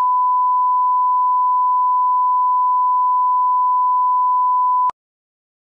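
Steady line-up test tone: a single pure beep held at one pitch for about five seconds, cutting off sharply.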